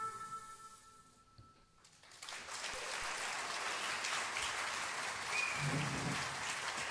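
The band's final chord ringing out and dying away, then after about a second of silence an audience applauding, with a brief shout near the end.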